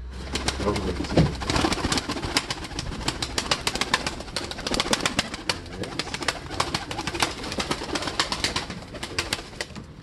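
Pigeon wings flapping, a dense run of rapid, irregular wing claps as young pigeons take off.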